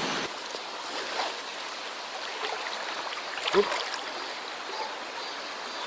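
Valley stream water rushing steadily. About three and a half seconds in, a brief louder sound with a short voice-like note.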